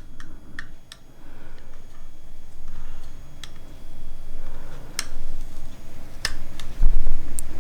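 A flathead screwdriver prying an old CR2450 coin-cell battery out of a plastic car key fob: scattered sharp ticks and clicks of metal on plastic and on the battery. Near the end a low rumble of hands handling the fob is the loudest sound.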